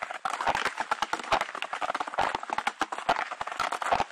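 Footsteps crunching in snow at a walking pace, about two steps a second, each step a crackly crunch.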